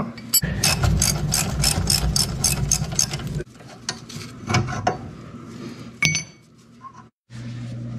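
Ratcheting wrench clicking rapidly and evenly, about six clicks a second for roughly three seconds, as the adjusting nut on a steering-clutch control spring is backed off. A few separate metal clinks follow.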